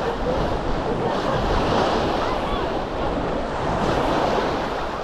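Sea waves washing onto a sandy shore, a steady rush that swells twice, with wind buffeting the microphone.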